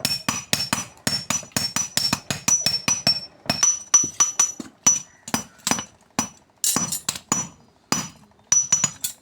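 A blacksmith's hammer striking metal in quick repeated blows, about four to five a second, each ringing high and metallic, with a few brief pauses near the end.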